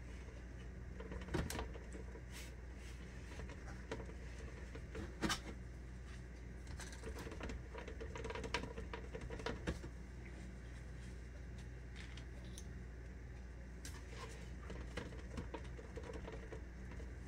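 Soft, irregular taps and clicks of a wide brush dabbing powder against a plastic cake stencil sleeve, over a faint steady hum.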